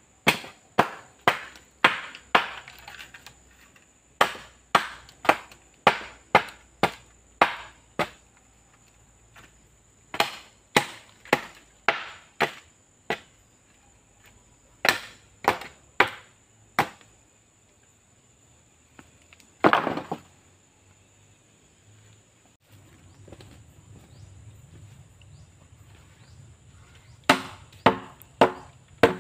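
Blade hacking the nodes off bamboo poles: sharp chopping strikes about two a second in runs of four to eight, with short pauses between runs and a lull of several seconds before a last run near the end.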